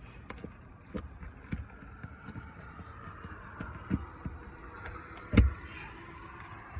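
Scattered knocks and clicks of hand tools working angled nails out of brittle asphalt roof shingles, the loudest knock about five seconds in. A faint vehicle hum from traffic runs underneath.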